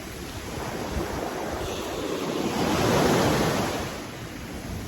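Sea waves breaking and washing up a sandy beach, the surge swelling to a peak about three seconds in and then receding, with wind buffeting the microphone.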